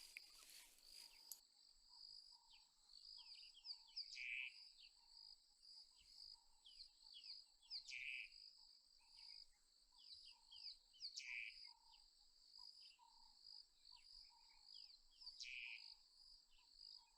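Faint, steady high-pitched insect trilling with birds calling over it: many short falling chirps and a louder call repeated about every four seconds.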